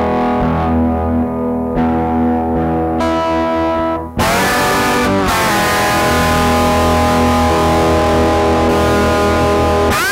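Electric guitar, a Gibson SG tuned to open E played through a small Kustom 10-watt amp, ringing out sustained open-tuned chords. About four seconds in the sound cuts out briefly and a new chord is struck and held, and a note bends up and down in pitch right at the end.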